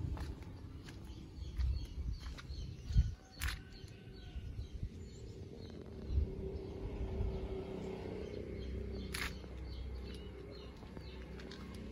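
Outdoor background: faint bird chirps over a steady low rumble, with a few sharp knocks.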